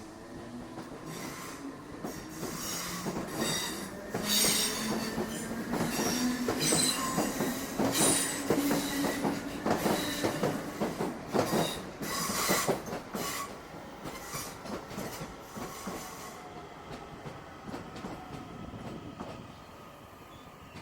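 A passenger train passing close by. Its wheels knock over rail joints in quick clusters, with some wheel squeal and a whine that rises slowly in pitch. It is loudest in the middle and fades toward the end.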